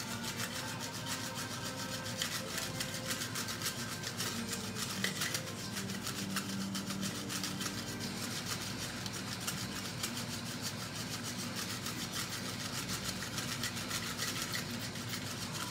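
Paper entry slips sliding and rustling inside a ceramic bowl as it is swirled and shaken, a continuous rubbing, scraping rustle.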